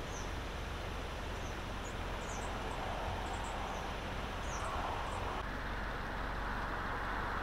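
Steady storm noise of rain and wind, with a few short, high bird chirps over it in the first five seconds. About five seconds in, it changes to a fuller, heavier rush of rain.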